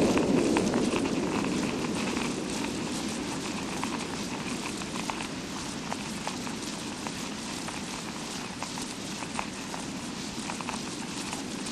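Fake rain sound effect: a steady hiss scattered with many small irregular ticks, imitating rainfall. A fuller, lower rush fades out over the first couple of seconds.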